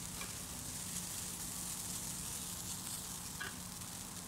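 Shredded cabbage, carrot and rice vermicelli sizzling in oil in a wok, a steady, quiet hiss, with a couple of faint clicks from the stirring.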